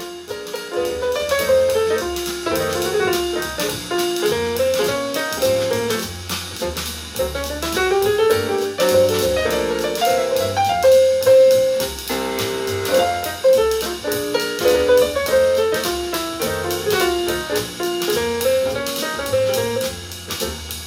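Jazz played through the speakers of a JVC RV-NB70 Kaboom boombox, with the equalizer on its minimum-bass setting.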